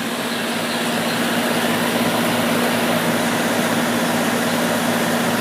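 Bryant central air conditioner condensing unit running: the Bristol compressor's steady hum under the even rush of the condenser fan. It grows a little louder over the first couple of seconds.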